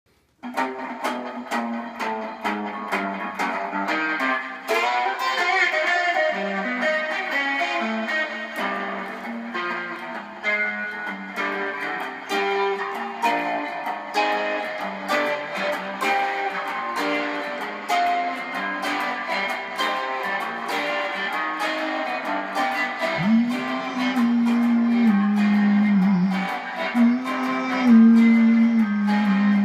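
Solo Gretsch hollow-body electric guitar played in a rockabilly style, with picked single-note lines and chords.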